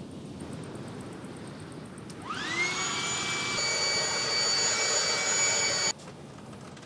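Small electric air pump spinning up with a quick rising whine, running at a steady pitch for about three and a half seconds, then switched off abruptly, as if inflating a sleeping pad.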